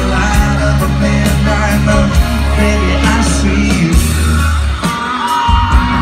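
Live country-pop band and singing over a loud concert PA, heard from inside the crowd. About five seconds in the heavy bass drops away, and high yells and whoops from the audience come through.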